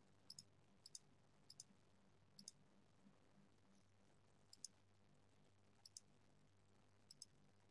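Faint computer mouse clicks over near silence: about seven clicks at irregular intervals, each a quick double tick of the button pressing and releasing.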